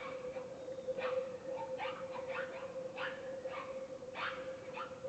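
Wild boars squealing: short, sharp calls overlapping at a few per second, over a steady hum.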